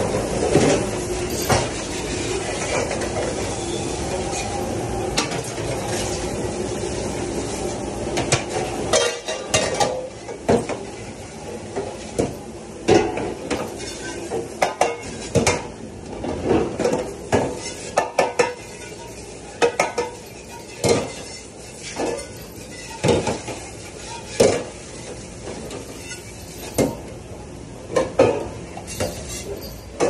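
Dish-pit pre-rinse sprayer hissing onto food containers and sheet pans, with clatters, for about the first nine seconds. The spray then stops, and stainless steel sheet pans and pans clank and clatter against the sink and each other as they are handled and stacked, one knock after another.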